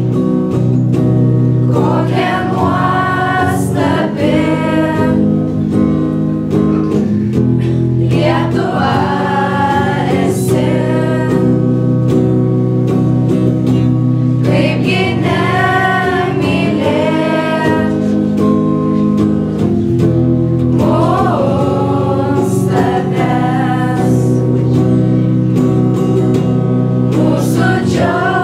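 A group of teenage pupils singing a song together, accompanied by an electric guitar, in sung phrases over a steady backing.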